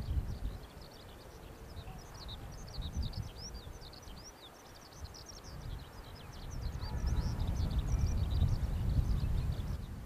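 Many small birds chirping together in a busy chorus of short, high notes. A low rumble underneath swells in the second half.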